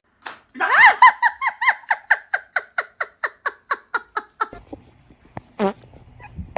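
An animal giving a fast run of short chirping calls, about five a second, loud at first and fading over about four seconds. A single sharp click follows near the end.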